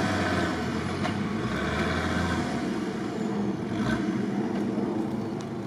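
UAZ off-roader's engine labouring as it climbs a loose sand hill, heard from a distance, driving on only three wheels because the right rear wheel is not working. The engine's low note eases about two and a half seconds in.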